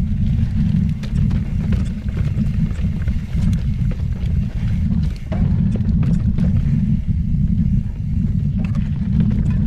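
Mountain bike riding down granite rock slabs: a steady wind rumble on the onboard microphone, with the clatter and knocks of tyres and bike parts over the rock.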